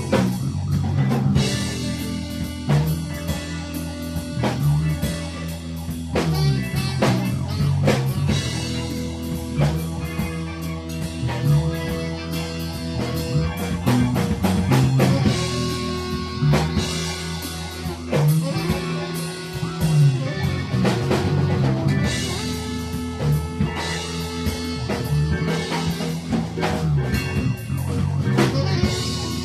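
Live improvised jazz-rock fusion from a quartet of bass, drum kit, keyboards and tenor saxophone. A repeating bass figure runs under steady drum hits and held melodic notes.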